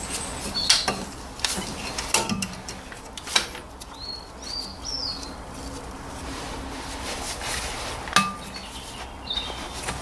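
Scattered metal clinks and knocks from a brake caliper and a wire hook being handled as the caliper is hung up. A few short bird chirps come in the middle and near the end.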